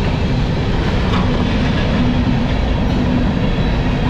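A long train's cars rolling past close by, a steady rumble of wheels on the rails.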